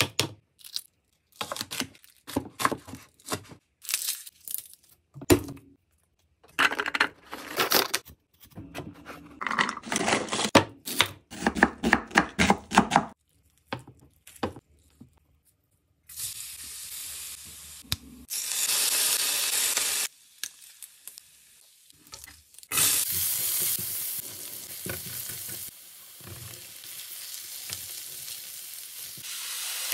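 Kitchen food-prep sounds: over the first half, a run of short taps and crackles from handling eggs and tearing cooked rotisserie chicken apart by hand on a wooden cutting board. Through most of the second half, a steady sizzling hiss while shredded chicken is stirred with a spatula in a metal pan.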